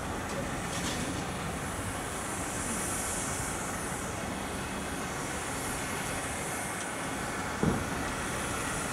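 Steady rumble and hiss from the C58 239 steam locomotive standing in steam, with one short low knock near the end.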